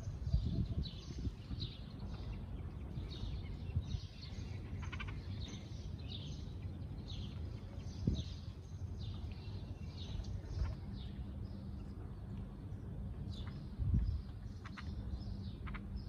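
House sparrows chirping over and over, short high chirps a couple of times a second, over a low steady background rumble. A soft thump sounds about eight seconds in and a louder one near fourteen seconds.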